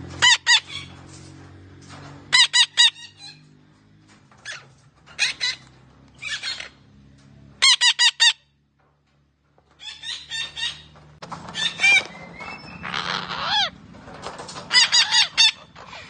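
Red-breasted parakeet giving loud, shrill squawks in quick runs of three or four notes, repeated every second or two, with a harsher, rasping call near the end.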